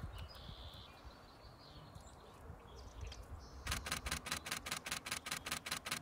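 A camera shutter firing in a rapid continuous burst, about six shots a second, starting about three and a half seconds in.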